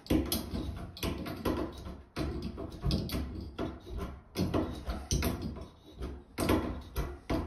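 Irregular light knocks, clicks and rattles of braided stainless-steel supply hoses being handled and their coupling nuts threaded by hand onto chrome shut-off valves.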